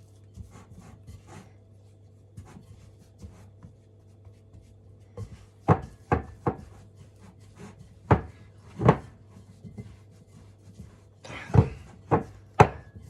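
Kitchen work at a worktop: scattered light ticks and rubbing, then about six sharp knocks of bowl and utensils in the second half, over a steady low hum.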